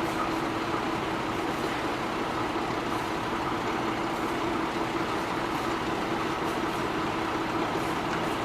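Shunting train moving in reverse, a steady mechanical running noise with a constant hum.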